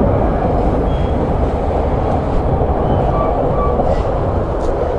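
Steady rumble and rattle of a White Pass & Yukon Route passenger train running along the track, heard from the side of a moving car. A few faint, very short high squeaks sound about a second in and again past the midpoint.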